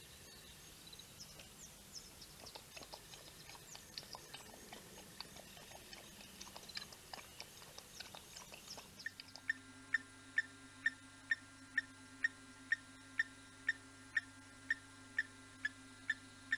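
Small birds chirping, with many short, high calls. About nine seconds in this gives way abruptly to an even ticking, about twice a second, over a low steady hum.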